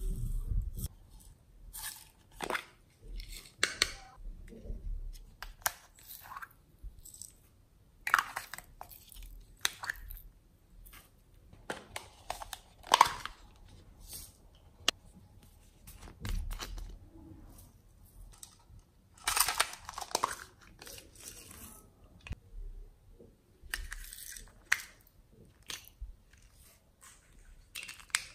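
Dry sequins and glitter rattling in small plastic cups and pattering onto slime as they are shaken out, with the cups clicking and knocking now and then, in scattered bursts of crackling.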